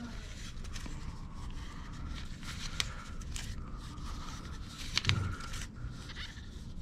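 PTFE (Teflon) thread tape being pulled off its roll and wrapped around a pipe nipple's threads with gloved hands: soft, irregular scratchy crackling with two sharper clicks midway, over a steady low hum.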